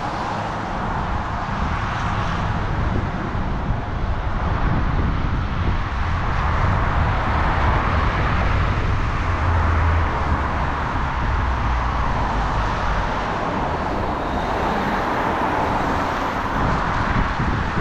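Steady street traffic: cars passing on a wet road, with a low rumble underneath.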